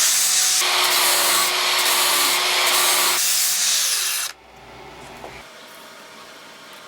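Power grinder grinding the surface of an old steel file for about four seconds to clean it for marking out. It then stops, and the motor winds down.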